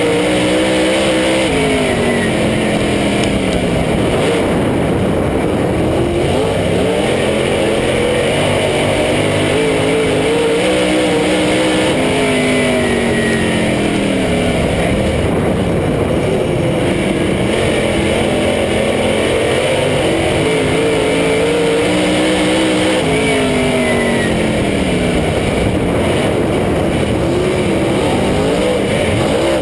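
Dirt oval race car's V8 engine heard from inside the cockpit under racing load, its pitch repeatedly dropping as the throttle comes off and then climbing again under full throttle, roughly every ten seconds.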